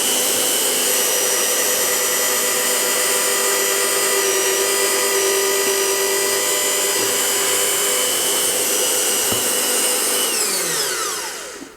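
Electric drill running at a steady speed, drilling stainless steel for a folding-knife liner, with a high-pitched motor whine. Near the end it is switched off and the whine falls away as it spins down.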